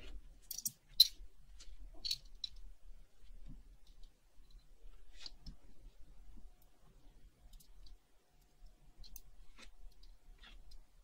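Scattered light clicks and taps of small metal tools against watch parts, the sharpest about a second in and again about two seconds in, then fainter sparse ticks.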